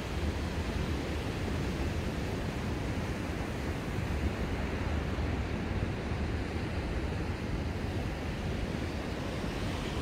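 Sea waves breaking and washing up a sandy beach in a steady, continuous surf, with a low wind rumble on the microphone underneath.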